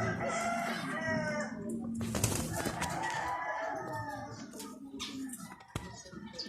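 Rooster crowing twice, two long calls of about two seconds each, one straight after the other.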